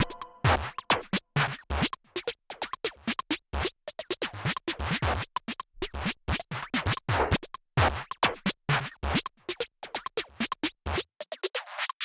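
Choppy percussive music: short clicks and low thumps in quick, irregular succession with brief silences between them, stopping shortly before the end.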